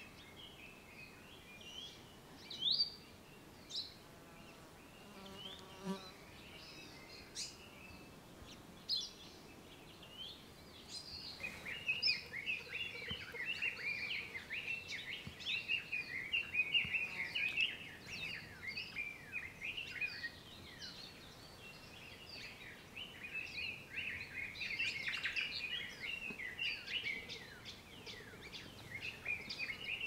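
Forest birds singing and calling. There are scattered high chirps at first, then from about eleven seconds in a dense chatter of many quick high notes that eases off for a few seconds and returns near the end. A faint low buzz passes about five seconds in.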